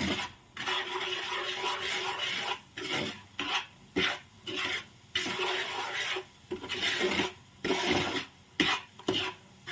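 A utensil stirring and scraping thick pepper and palm-sugar candy syrup around a nonstick pan, in repeated rasping strokes with short pauses between them.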